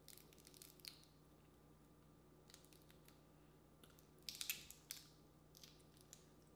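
Boiled crawfish being cracked and peeled by hand: faint, scattered shell crackles and snaps, with the loudest cluster about four and a half seconds in.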